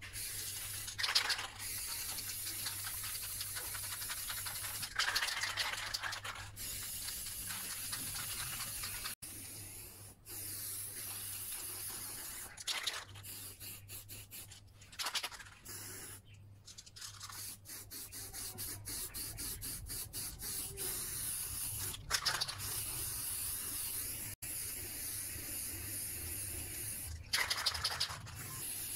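Aerosol spray paint can hissing in long bursts, with short gaps between passes.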